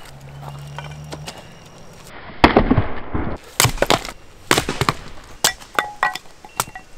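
Axe splitting firewood on a wooden chopping block: a series of sharp chopping strikes, the loudest about two and a half seconds in, the rest coming every half second to a second.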